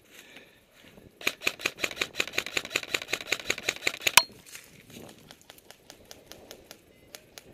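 Airsoft electric gun firing a full-auto burst: a rapid, even run of about nine sharp clicks a second for some three seconds, ending on one louder crack. Fainter scattered clicks follow.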